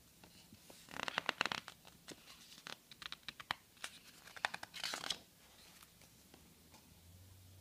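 Paper pages of a coloring book being handled and turned by hand, rustling and crackling in two bursts, about a second in and again around five seconds, with light scattered paper ticks between.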